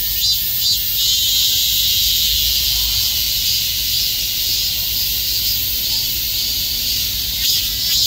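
Cicadas calling loudly in a chorus. Rhythmic high pulses, about three a second, merge about a second in into one continuous high buzz, and the pulsing comes back near the end.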